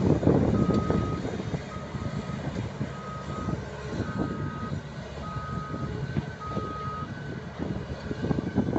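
A reversing alarm beeping at one steady pitch, about once a second, over the rumble of heavy diesel machinery that is loudest in the first second.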